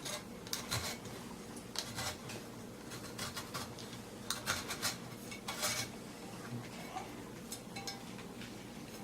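Razor knife scraping old foam surround residue and glue off a speaker driver's metal frame, in short irregular scratchy strokes, several passes.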